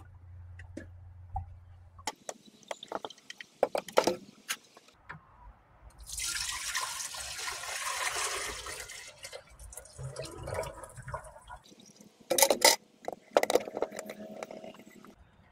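Blue copper sulfate solution, drained off the crystals, poured in a stream from a plastic bucket into a glass beaker: a splashing pour of about three seconds in the middle. Before and after it come sharp clinks and knocks of the glass beakers and bucket being handled.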